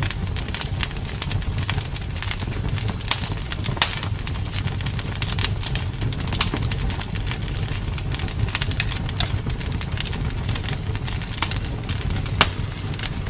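Wood fire in a fireplace crackling: irregular sharp pops and snaps over a steady low rumble of the flames, with a few louder pops about three, four and twelve seconds in.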